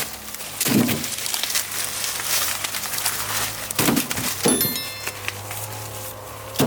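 Dry corn husks and leaves rustling and crackling, with three louder crunchy snaps, the loudest about a second in and two more around four seconds in.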